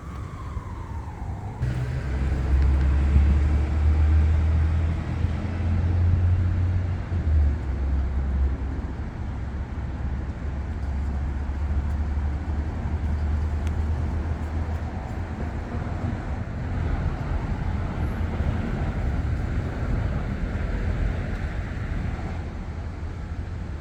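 City street traffic: vehicles passing with a heavy low rumble that swells about two seconds in and eases off after the middle, and a tone falling in pitch right at the start.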